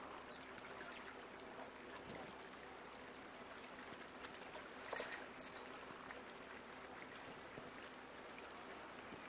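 Faint steady lapping of calm sea water against a quay and a moored boat's hull. A few short, high bird chirps cut through, the loudest about five seconds in and another about seven and a half seconds in.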